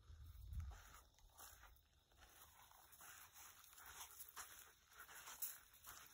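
Faint footsteps and rustling on dirt and sparse grass, with a brief low rumble in the first second.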